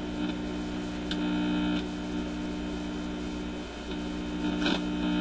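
Mains hum from the Admiral suitcase record player's speaker, picked up at the amplifier input as fingers touch the tone-arm cartridge leads. The hum grows louder twice, about a second in and near the end, each time with a small click as contact is made. It is the sign that the amplifier is working.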